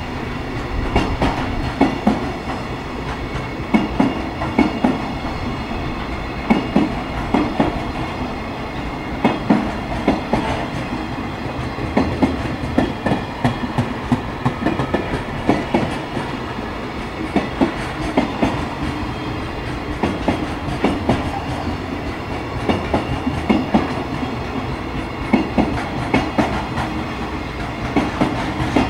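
JR Freight container train's loaded container wagons rolling past, wheels clacking over the rail joints in a repeating rhythm of click clusters over a continuous rumble.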